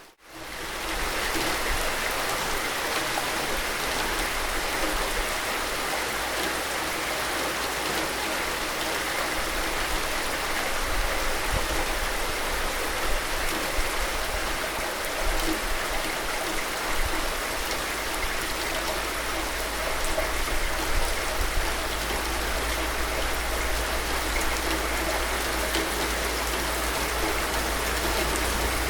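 Steady rain, an even hiss of drops with a low rumble underneath, coming back in after a brief dropout at the very start.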